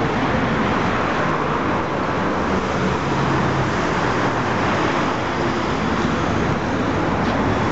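Steady noise of running vehicle engines and street traffic, loud and even throughout.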